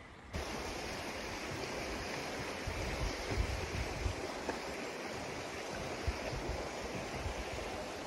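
Steady rushing noise with wind buffeting the microphone in uneven low gusts, starting suddenly a moment in, with a few soft knocks.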